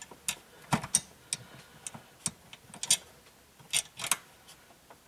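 Irregular sharp metallic clicks and clinks, about a dozen spread unevenly, as small replacement screws or bolts are picked out and handled.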